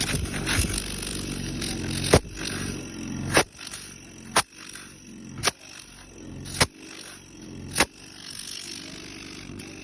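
Air compressor running with a low steady hum, punctuated by six sharp bangs roughly once a second, each after a brief rise in level.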